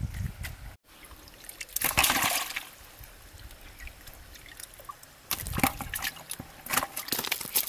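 Water splashing and sloshing in a plastic bucket as fish are handled and lifted out of it: one loud splash about two seconds in, then a run of splashes near the end.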